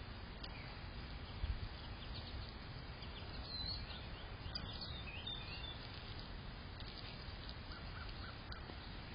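Birds chirping in short high calls, most of them bunched around the middle, over a steady low rumble of outdoor background noise. A brief low thump about one and a half seconds in.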